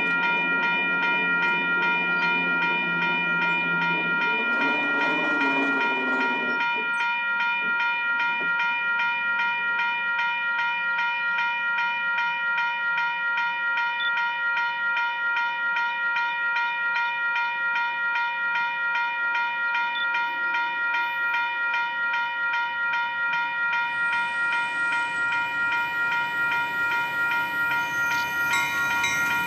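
Railroad grade-crossing bell ringing steadily and rapidly as a train approaches. For about the first six seconds an approaching MBTA F40PH-2C diesel locomotive sounds its horn, and near the end the train itself draws close.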